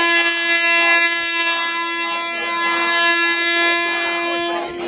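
A handheld air horn sounding one long, steady blast on a single held note, with voices from the crowd faintly beneath it.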